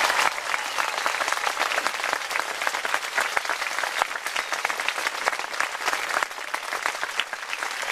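Audience applauding: many hands clapping in a dense, steady patter that eases slightly near the end.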